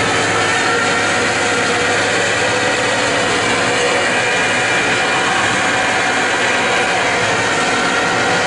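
Truck engine held at steady high revs during a burnout, its rear tyres spinning on the pavement; a loud, unbroken drone whose pitch drifts slowly upward.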